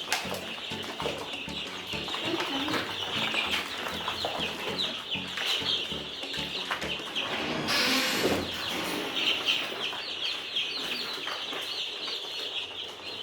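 A brooder full of two-week-old chicks peeping continuously, many short high chirps overlapping. A brief rustling noise about eight seconds in.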